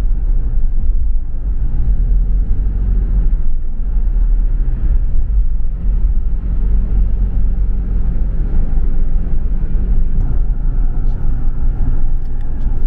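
Car interior noise while driving at highway speed: a steady low rumble of engine and tyres on the road, with a faint even engine hum.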